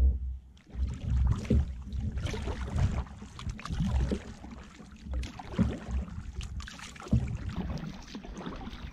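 Kayak paddle strokes splashing and dripping in choppy water, in an irregular rhythm, with wind buffeting the microphone in low rumbles.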